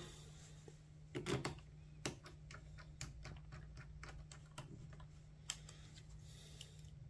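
Faint, irregular light clicks and taps of small screws and a screwdriver being handled while case screws are fitted back into a laptop's plastic bottom cover.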